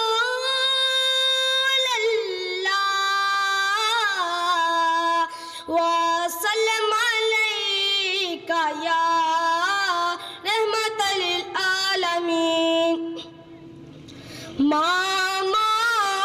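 A boy's unaccompanied voice singing a naat, long held notes bending up and down, with a short break for breath about thirteen seconds in.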